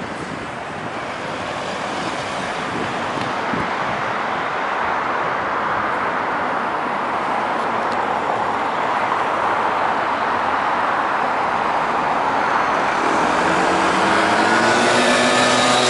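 Road traffic: tyre and engine noise of passing vehicles, growing steadily louder. In the last few seconds one vehicle's engine comes up clearly and rises in pitch as it speeds up.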